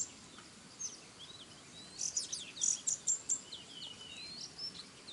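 Small wild birds chirping and calling in bursts of high, thin notes with quick up-and-down sweeps, busiest about two to three seconds in, over a faint hiss of the forest.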